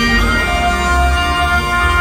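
Pipe band music: Highland bagpipes play a tune over their steady drones, with a new melody note coming in about half a second in.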